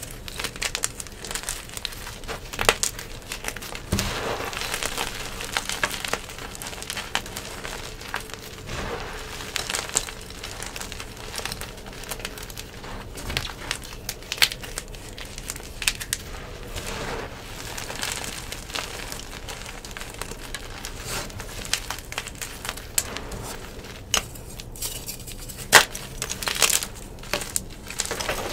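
Yellow-dyed gym chalk pebbles and powder squeezed and crushed by hand: a continuous, irregular crunching and crackling with the odd sharper crack.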